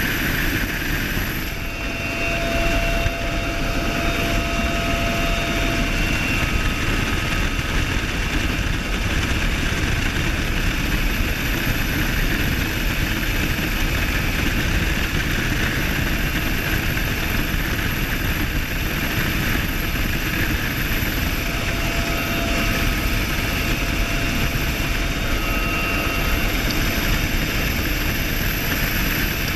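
UH-1Y Venom helicopter in flight, its twin turboshaft engines and rotors making a steady, loud noise heard through the open gunner's door, with faint whining tones that come and go.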